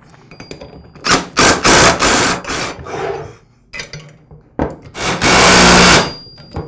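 Cordless impact driver with a socket extension hammering nuts tight, in two bursts of loud rapid rattling. The first burst starts about a second in and tails off, and the second comes near the end.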